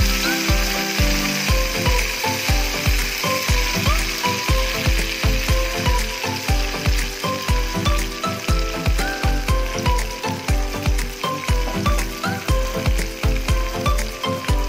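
Background music with a steady fast drum beat and short melodic notes, over the sizzle of anchovies frying in oil.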